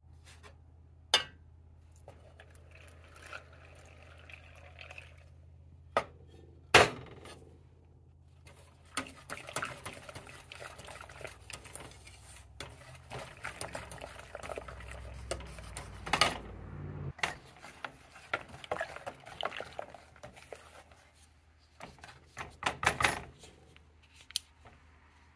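A silicone-coated whisk stirring and scraping in a stainless steel saucepan, mixing cocoa powder and then liquid, with a few sharp taps against the pot.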